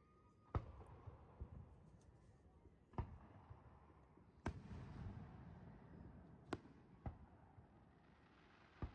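Aerial firework shells bursting: about five sharp bangs a second or two apart, each trailing off in a low rumble, with a couple of fainter pops between them.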